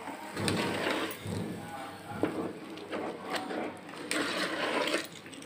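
Spoon stirring and scraping thick halwa around a metal pot, with uneven scraping and a few sharp knocks of the spoon against the pot.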